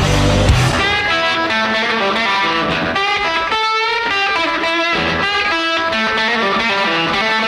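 Rock music soundtrack: a distorted electric guitar playing a riff, the heavy bass and drums dropping out about half a second in.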